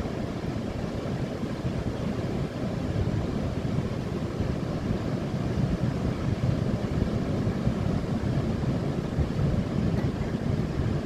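Wind buffeting the microphone over the steady wash of ocean surf on a rocky shore, getting a little louder a few seconds in.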